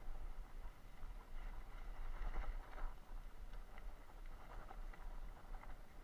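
A bicycle rolling along a dirt track: the tyres crunch over grit and the bike rattles in uneven bursts, over a steady low rumble of wind on the microphone.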